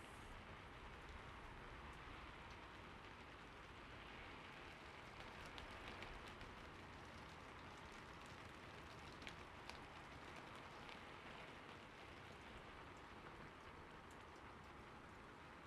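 Faint, steady rain-like hiss with a few soft ticks scattered through it.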